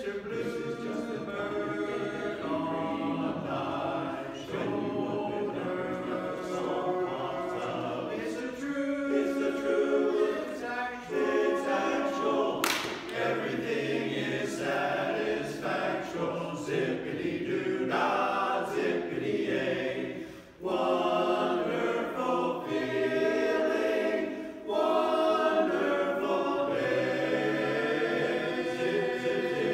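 Barbershop chorus singing a cappella in close harmony, an upbeat song with sustained chords. A single sharp click sounds about 13 seconds in.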